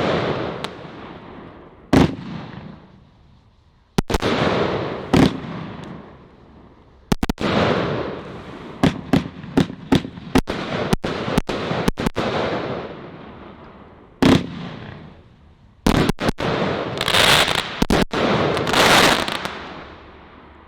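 A 76-shot firework cake with 30 mm tubes firing: sharp shots, each followed by a long fading tail. They come singly at first, then in quick volleys of several shots, and die away near the end.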